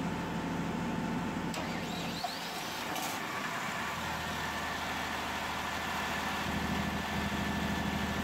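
Perkins 1103-series three-cylinder diesel generator engine cranking and catching within the first few seconds, then running steadily at generator speed.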